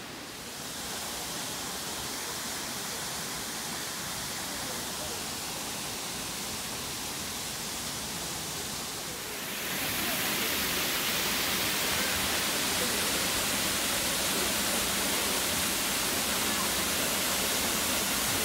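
Steady rush of a waterfall's falling water, getting louder about a second in and again, louder and brighter, around halfway.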